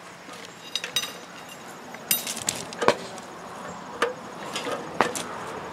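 A series of sharp metallic knocks and clinks, about six spread over a few seconds, some ringing briefly, from a Stanley hydraulic rail weld shear being handled and clamped on a steel rail to trim a fresh thermite weld.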